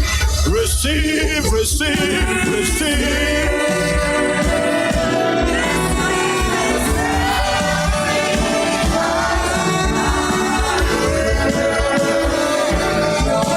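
Worship music with singing: wavering voices over long held notes and a steady deep bass.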